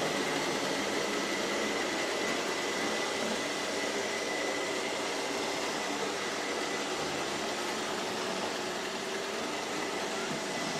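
ILIFE A4 and X5 robot vacuum cleaners running together: a steady whir of suction motors and brushes, with a thin high whine.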